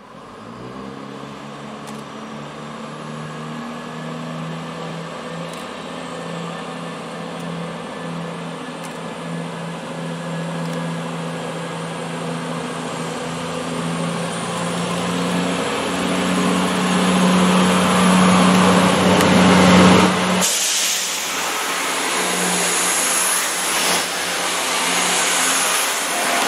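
CrossCountry Class 170 Turbostar diesel multiple unit approaching, the steady drone of its underfloor diesel engines growing louder. About three-quarters of the way in, the engine note drops away and the rushing wheel-and-rail noise of the train passing close by takes over, with a thin high squeal.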